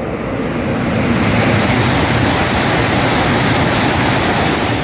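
E5-series Shinkansen bullet train passing through a station at speed without stopping: a loud rushing of air and wheels on rail that swells over the first second, holds, and begins to die away near the end.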